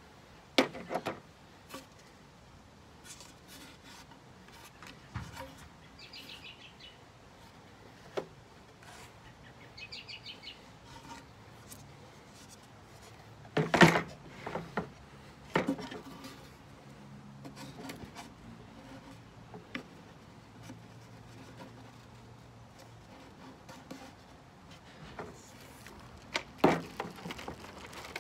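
Thin plywood and pine panels of a flat-pack wooden record crate being handled and fitted together: scattered wooden knocks and clacks, the loudest about halfway through, with light rubbing between them and two brief runs of rapid fine ticking.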